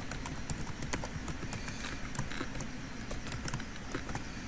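Typing on a computer keyboard: a run of irregular key clicks, several a second, as a username is keyed in, over a low steady hiss.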